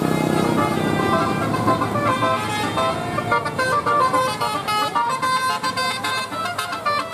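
Bus telolet horn, a multi-tone air horn, playing a quick melody of short stepped notes over a running bus engine. The horn tune comes in about two seconds in.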